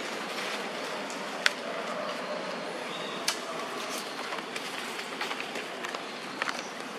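Steady outdoor background noise with a few sharp clicks and snaps, the loudest about one and a half seconds in and another about three seconds in, as young macaques scramble through twigs and drop onto dry leaf litter.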